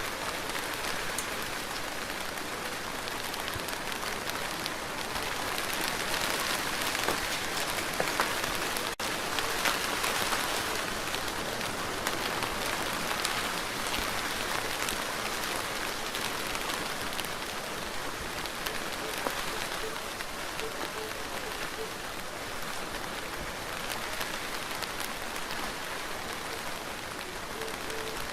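Steady rain falling, a dense patter of many small drops, with a split-second gap about nine seconds in.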